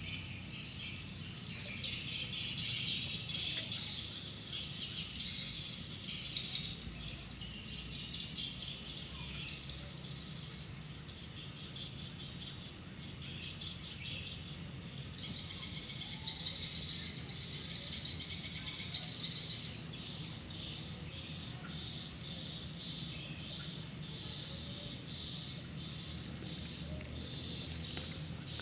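Edible-nest swiftlets chirping in a fast, high-pitched twitter. From about two-thirds of the way in it becomes a regular series of short rising chirps, one to two a second.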